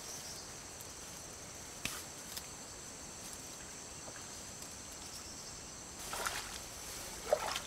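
Steady high-pitched chorus of insects in swamp grass. From about six seconds in, splashing in shallow muddy water and rustling of grass as a catfish on a set line is pulled out, with a sharp click shortly before the end.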